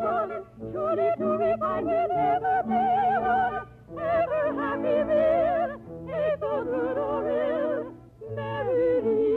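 Operatic singing with strong vibrato over orchestral accompaniment, in phrases broken by short breaths about a third of the way in, near the middle and near the end. The sound is thin and dull, cut off in the highs as on an old radio transcription.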